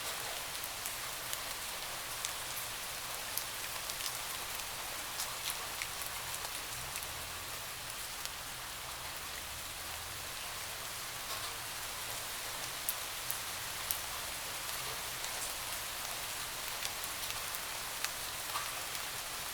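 Steady rain falling on a window: an even hiss with scattered sharper ticks of single drops hitting.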